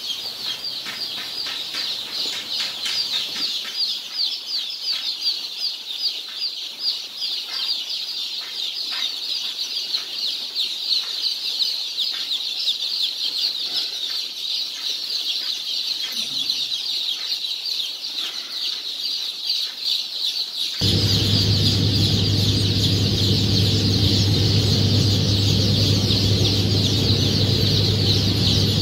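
A large brood of young Australorp and Rhode Island Red chicks peeping without pause in a dense, high-pitched chorus. Near the end a steady low hum starts suddenly and carries on under the peeping.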